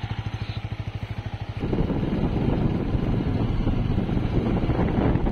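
Motorcycle engine idling with an even pulse; about one and a half seconds in the bike pulls away and the sound turns to a louder, steady rush of engine and wind on the microphone as it rides off.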